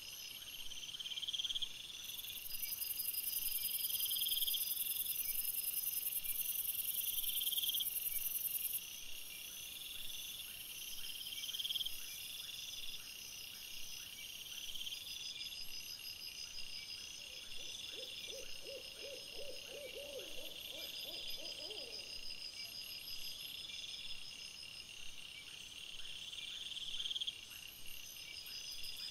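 Night insects, crickets, chirping steadily in several even pulsing rhythms at once. Past the middle a low quavering call of quick repeated notes, hoot-like, sounds for about four seconds.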